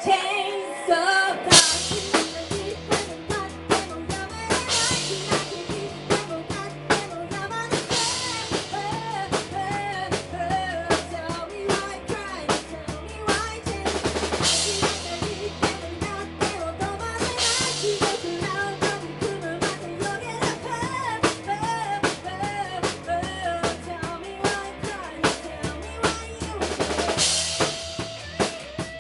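Rock band music with a driving drum-kit beat of bass drum and snare, a steady bass line, and a wavering melodic line above them.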